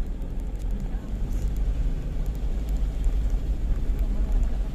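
Steady low rumble of a vehicle driving along a road, engine and road noise with no change in pace.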